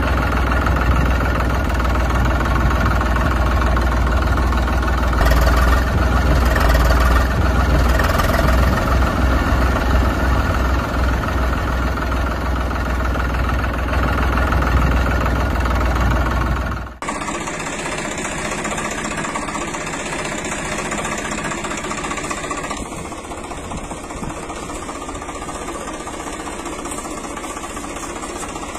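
Tractor engine running steadily with a deep rumble. A little over halfway through it cuts abruptly to a quieter engine sound with less low rumble.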